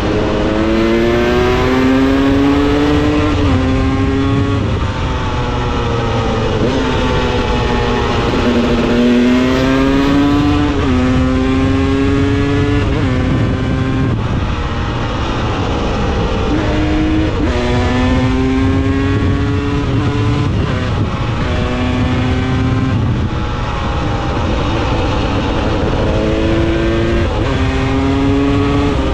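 Two-stroke 300 cc enduro motorcycle engine accelerating through the gears, its pitch climbing and dropping back at each upshift, several runs of this with easing off in between, over wind and road noise.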